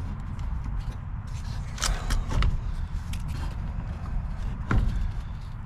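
A few sharp metallic clicks and knocks of a hand tool working against a stuck battery terminal clamp, over a steady low rumble.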